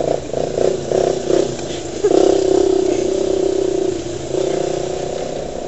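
Vehicle engine running under load on a dirt track: an uneven, pulsing note for the first second or so, then a steady, stronger note from about two seconds in that eases a little near the end.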